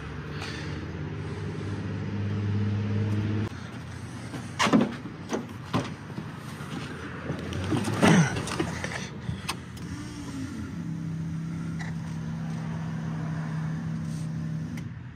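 Steady mechanical hum from the car that grows louder and then cuts off abruptly about three and a half seconds in. A run of sharp knocks and clicks follows. A second, steadier hum starts about eleven seconds in and stops just before the end.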